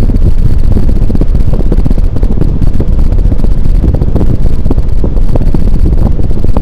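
King of Fans Grenada 52-inch ceiling fan running, its draft buffeting the microphone with a loud, steady, rough wind rumble.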